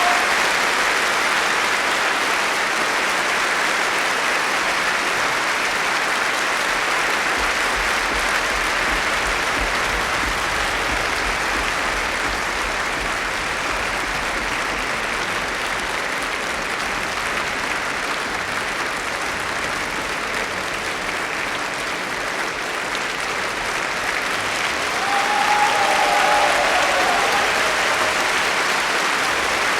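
Large crowd applauding steadily: continuous dense clapping, swelling a little louder about 25 seconds in.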